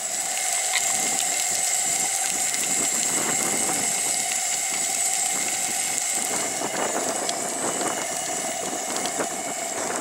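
Sausages frying on a petrol-fuelled Coleman dual-fuel camp stove: the pressurised burner hisses steadily under the pan, with the fat sizzling and crackling.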